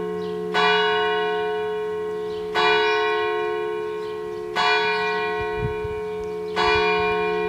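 A church bell tolling: four strikes about two seconds apart, each leaving a long ringing hum that carries on under the next.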